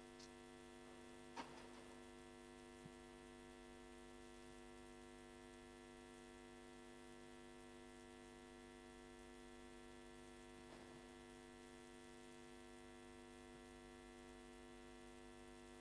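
Near silence with a steady electrical mains hum, with one short faint click about a second and a half in.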